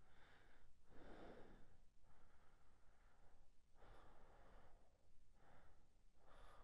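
A person breathing faintly, about half a dozen slow breaths in and out, each roughly a second long.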